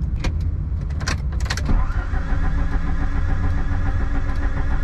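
A few sharp clicks, then the Alfa Romeo 155's starter motor cranking the stalled engine, turning it over with an even, repeating rhythm without it catching: the car has broken down and will not restart.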